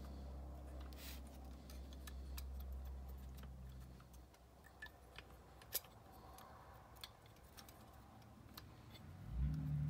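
Light, scattered clicks and ticks of the Quadrajet carburetor's small metal choke and throttle linkage being handled and worked by hand to check that it moves without binding, with one sharper click about halfway through. A faint low hum sits under the first few seconds.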